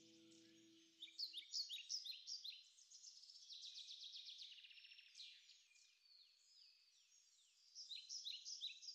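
Faint birdsong: birds chirping in quick runs of short falling notes, busiest about a second and a half in and again near the end. A held musical tone dies away about a second in.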